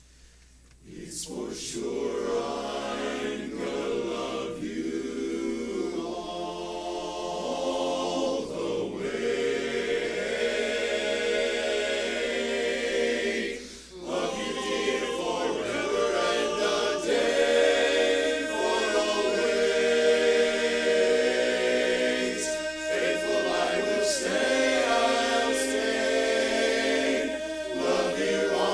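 A cappella barbershop chorus singing in close harmony. The voices come in about a second in after a silence, and there is a short drop for a breath about halfway through.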